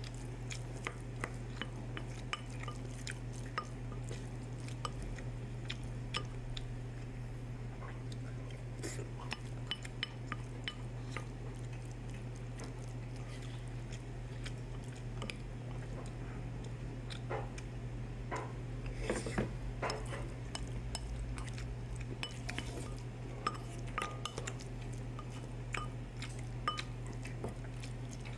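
A wooden spoon scraping and knocking against a ceramic bowl of fried rice, with scattered small clicks and taps and a brief flurry about two-thirds of the way in, over a steady low hum.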